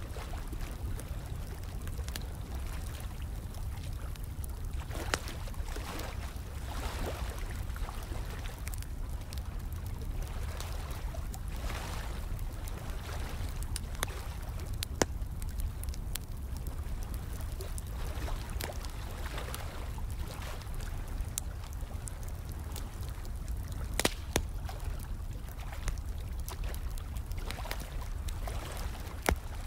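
Fire crackling with irregular sharp pops, a few of them louder, over the steady sound of running, trickling water.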